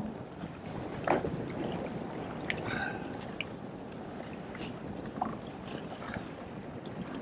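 Steady wind and water noise on an open fishing boat, with scattered knocks and clicks as a fish is handled in a landing net; one sharper knock about a second in.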